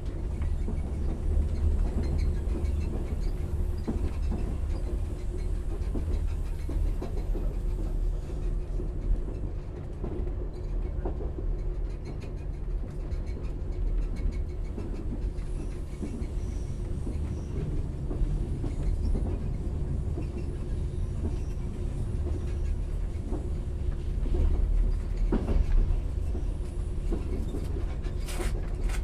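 Train riding slowly, heard on board: a steady low rumble with a steady hum, the wheels clicking now and then over the rails. A brief high-pitched sound comes near the end.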